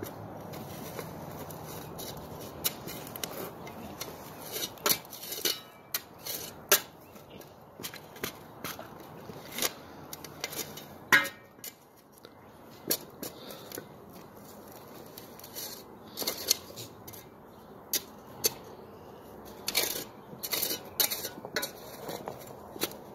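Long-handled spade digging into gravelly soil: irregular scrapes and sharp metallic clinks as the blade cuts in and strikes stones, the loudest about eleven seconds in.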